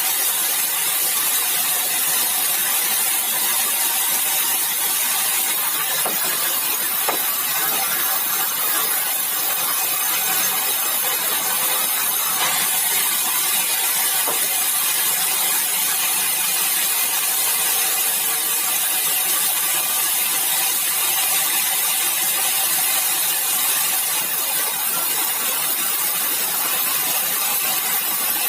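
Sawmill saw running steadily, cutting bengkirai hardwood, a loud, even, hissing machine noise with no break.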